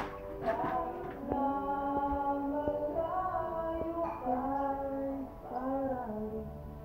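A song with a sung melody of long, held notes over backing music. A sharp knock right at the start.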